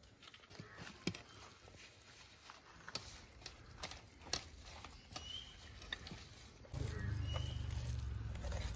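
Hands mixing and squeezing a wet spice masala on a steel plate: soft squelches and small irregular clicks. A low rumble comes in near the end.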